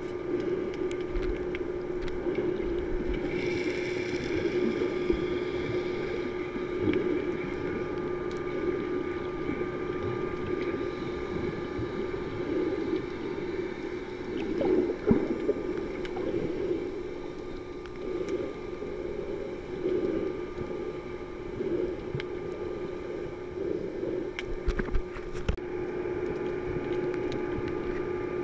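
Muffled underwater sound heard through a GoPro's waterproof housing: water moving around the camera in uneven swells over a steady low hum, with scattered small clicks.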